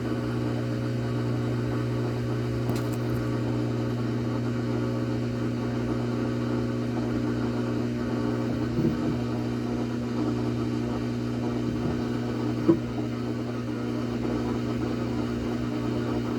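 A motor or engine running steadily at constant speed with an even low hum, with a single sharp click about thirteen seconds in.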